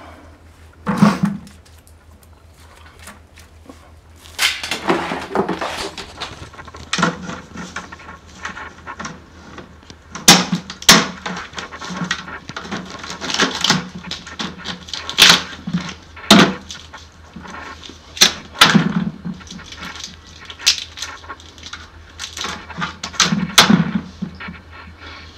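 Dungeness crabs being cleaned by hand: the shells crack and tear apart as the back shell and leg clusters are pulled off and the gills peeled away, and pieces drop into a plastic bucket. The result is an irregular string of sharp cracks and wet snaps over a steady low hum.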